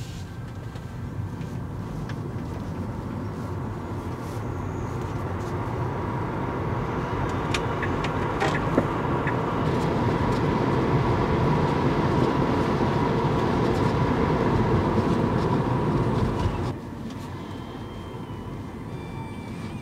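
Road and tyre noise inside the cabin of a moving Tesla Model 3, an electric car with no engine sound, growing gradually louder and then dropping abruptly near the end.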